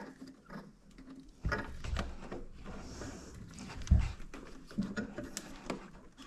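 Spring hose clip being worked onto a coolant hose with hose-clip pliers: scattered small metallic clicks and a few dull knocks, the loudest about four seconds in.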